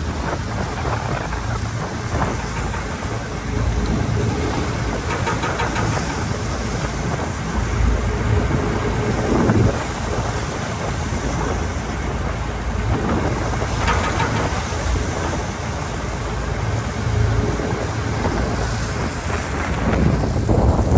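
Wind buffeting the microphone aboard a car ferry under way in rough seas, over a steady low rumble and the rush of water along the hull.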